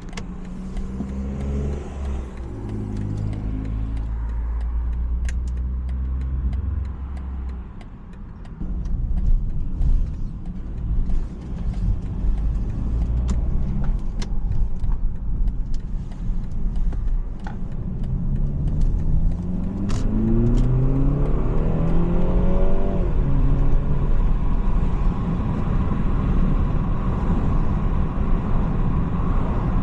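BMW 330i's 2.0-litre turbocharged four-cylinder engine and road noise while driving. About two-thirds of the way through, the engine revs climb steadily under acceleration, then drop sharply as the automatic shifts up, settling into steady cruising with tyre and road noise. A few sharp clicks sound along the way.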